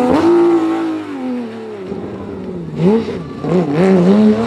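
Porsche 911 GT3 rally car's flat-six engine at high revs, then the engine note falling as the driver lifts off. Near the end it comes back with a few short throttle blips and revs climbing again.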